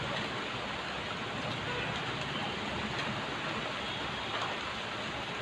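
Heavy monsoon rain falling, a steady, even hiss.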